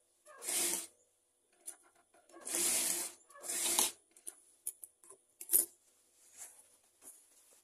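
Batik shirt fabric rustling and rubbing as it is slid and handled on a sewing machine table, in a few short bursts, followed by several sharp clicks, the loudest a little after five seconds in.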